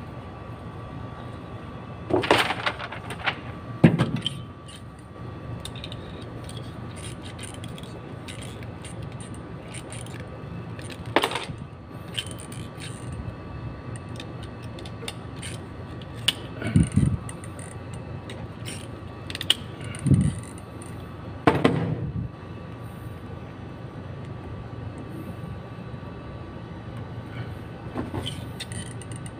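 Scattered knocks, clicks and rustling as hands route a wire and handle a screwdriver on a relay wiring board, with a handful of louder knocks spread through, over a steady background hum.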